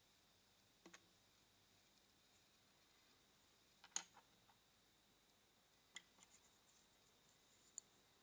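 Small hard-plastic miniature toy pieces clicking and tapping as they are picked up and set down on a table: a quick double click about a second in, the loudest tap about four seconds in, and a scatter of lighter clicks from about six seconds on, otherwise near silence.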